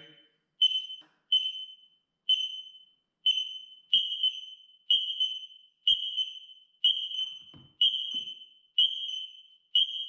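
X-Sense wireless smoke alarms in test mode, sounding a high-pitched beep about once a second while the primary's test button is held down, with the interlinked alarms sounding along with it. The beeps grow longer and fuller about four seconds in.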